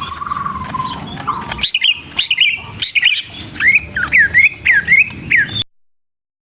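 Young birds chirping: a string of short, high chirps, then a run of downward-sliding calls about two a second. The sound cuts off abruptly near the end.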